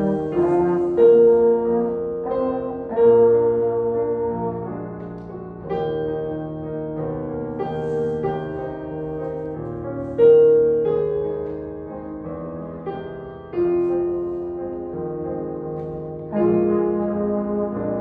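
Brass instrument solo playing long held notes over a digital piano accompaniment, with the piano's chords striking in every few seconds.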